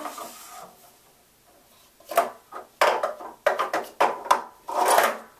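Plastic sport-stacking cups clacking against each other and the table as a 3-3-3 stack is built and taken down: a quick, irregular run of knocks starting about two seconds in.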